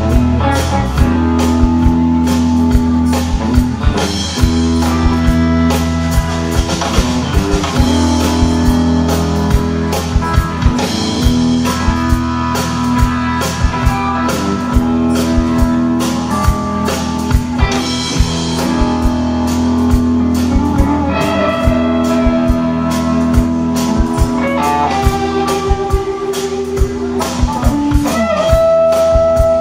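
Live blues-rock band playing an instrumental passage: electric guitars holding and repeating notes over a steady drum kit beat.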